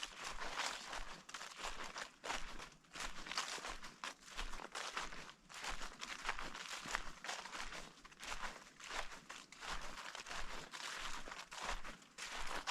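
Footsteps of a person walking at a steady pace over the autumn forest floor, each step a short noisy crunch.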